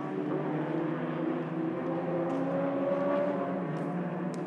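Engines of small open-wheel single-seater race cars running past on the track, a steady engine note whose pitch rises slightly about halfway through as they accelerate.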